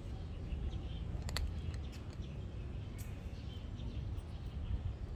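A cat crunching dry kibble: a few sharp crunches, the clearest about a second and a half in and again at three seconds, over a steady low rumble.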